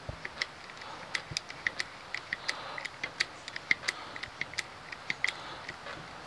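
Hydraulic crimper clicking as it is worked to close its die on a ring terminal over a battery cable: a run of sharp, uneven clicks, about three or four a second.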